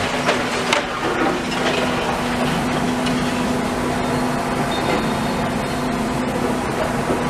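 Demolition machinery working, with a steady engine hum under cracking and crunching of material being broken, the cracks sharpest in the first two seconds.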